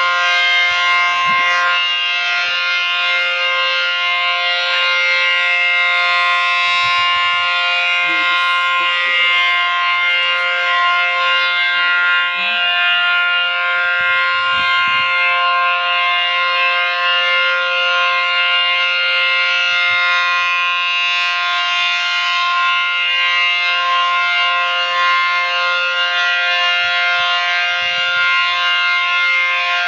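ACA Allertor 125 outdoor warning siren sounding a steady tone, its pitch held level without rising or falling, several tones stacked together, loud and unbroken.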